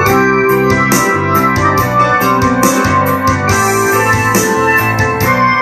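Ensoniq SD-1 synthesizer played with both hands in an electric piano and organ sound, chords and runs of notes in a rock piece. A steady beat of sharp percussive hits runs behind the keyboard.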